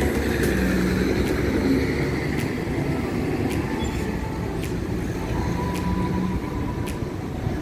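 Steady rumble of city street traffic, with a faint high tick about once a second.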